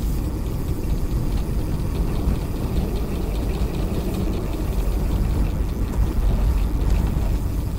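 Steady low rumble of wind rush and tyre noise at speed, with a fainter hiss above it.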